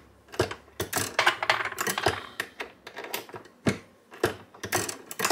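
Irregular sharp clicks and metallic clacks of an RCBS bench priming tool working through brass 45-70 cases: the handle pressed down to its stop as each primer is seated, and brass cases set in and lifted out.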